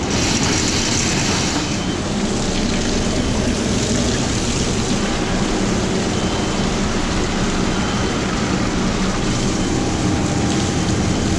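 Electric drum-type drain cleaning machine running steadily, its motor and spinning cable clattering inside a kitchen floor drain as it clears a grease-plugged drain line.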